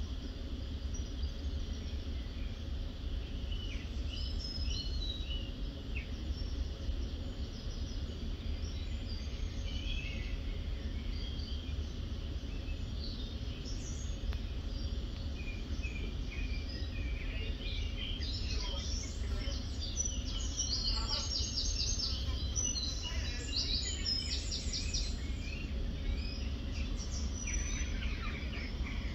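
Outdoor ambience: small birds chirping and singing over a steady low rumble. The bird song grows busy for several seconds a little past the middle.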